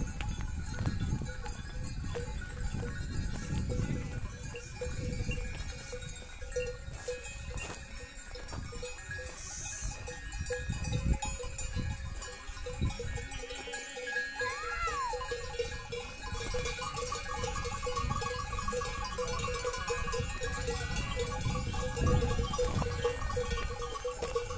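A flock of sheep with livestock bells ringing steadily over a low rumbling noise, and a single short call about fourteen seconds in.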